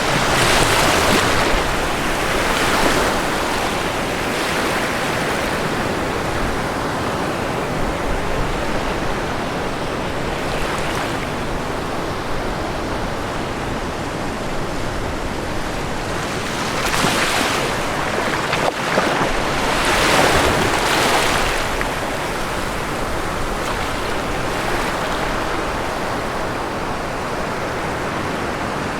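Ocean surf washing onto a shore, a continuous rush of water with louder breaking waves near the start and twice more about two-thirds of the way through.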